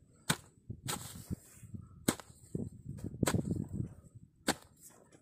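Hoe chopping into grassy soil, with five sharp strikes about a second apart and the scrape and rustle of turned earth and grass between them.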